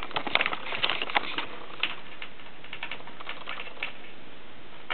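Irregular sharp ticking and snapping from a battery-driven flyback transformer circuit firing high-voltage pulses. The clicks come in a quick cluster for the first second and a half, then grow sparse.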